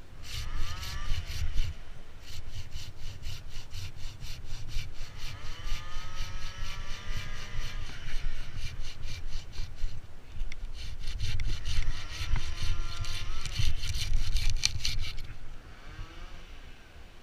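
A saw cutting through wood in a fast, even rhythm of rasping strokes, stopping a couple of seconds before the end.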